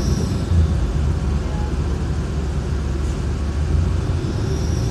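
City transit bus running as it drives, heard from inside the passenger cabin: a steady low rumble of engine and drivetrain.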